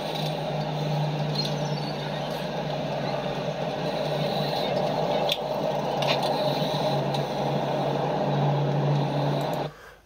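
Steady outdoor background noise with a low, even hum underneath, from riverside footage playing back; it cuts off suddenly just before the end.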